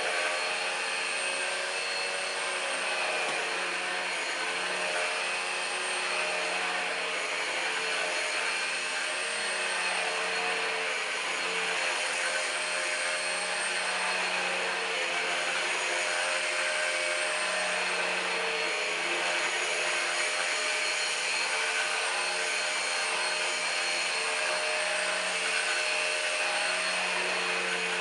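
Numatic Henry Quick HEN70 cordless stick vacuum running steadily while vacuuming, a constant motor whine over the rush of suction air.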